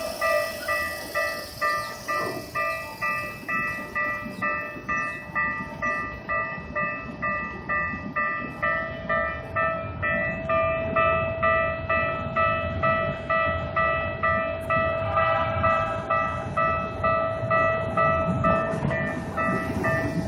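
Japanese level-crossing warning bell ringing at about two strikes a second, with a train rumbling past underneath. About fifteen seconds in, a second bell at a different pitch joins in.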